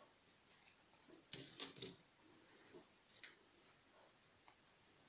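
Scissors snipping a small piece of felt, faint short clicks: three close together about a second and a half in, then single snips later.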